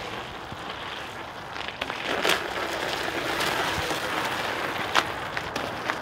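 Home-made screw-studded mountain bike tyres rolling over ice: a steady crackling grind as the screw heads bite the ice, with a few sharp clicks about two seconds in and again near five seconds.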